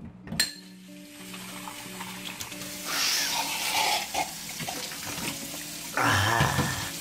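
Kitchen faucet turned on with a click and running into a glass held over a stainless-steel sink, the water hiss growing louder for a second or so partway through. Near the end comes a short, loud gasp.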